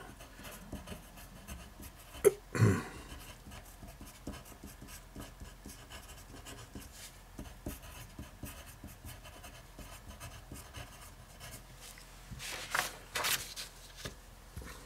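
Handwriting on paper: quiet, continual scratching strokes of a pen or pencil nib as a note is written, with a single sharp knock about two seconds in.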